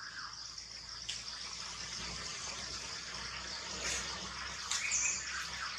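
Outdoor forest ambience: insects droning steadily under a constant hiss, with a few short chirps or clicks about a second in and again near the end.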